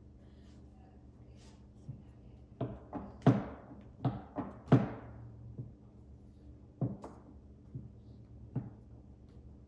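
A cat's tail thumping against the surface it lies on: about a dozen irregular soft thumps, closest together and loudest in the middle.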